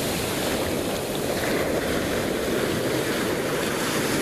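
Shallow surf washing in over the sand at the water's edge, a steady, even rush of foaming water around bare feet.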